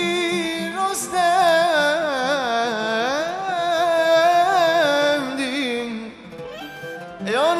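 Male vocalist singing a Turkish song over musical accompaniment, holding a long note and then winding through rising and falling melismatic runs. The singing drops away about six seconds in, and a new phrase begins near the end.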